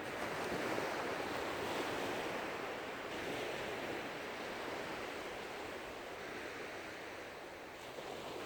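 Small waves washing onto a sandy beach: a steady hiss of surf that swells and eases slowly.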